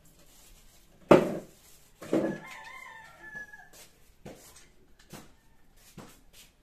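Rooster crowing about a second in, with the drawn-out, wavering part of the call lasting to nearly four seconds. A few light clicks follow.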